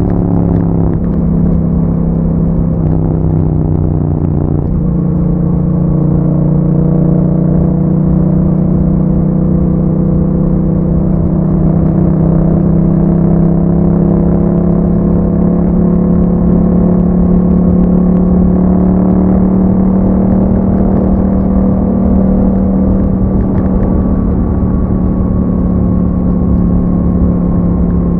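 2021 Yamaha MT-07's 689 cc parallel-twin engine running through an Akrapovic exhaust with a dB killer fitted, heard on board while riding. The engine note drops over the first few seconds, then holds a steady cruise with a slow, slight rise and fall in pitch.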